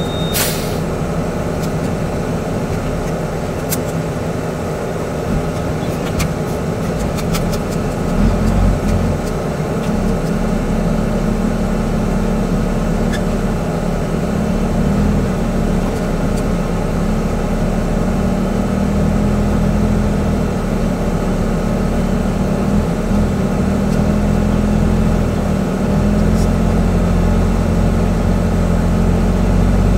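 Truck's diesel engine running steadily as heard from inside the cab while driving on a dirt road, with a few faint rattles, played back at double speed.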